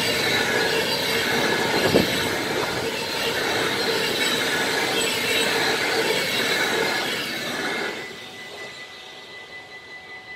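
A train running past close by: steady rolling rail noise with high wheel-squeal tones and a single knock about two seconds in. The noise falls away sharply about eight seconds in, leaving a faint steady whine.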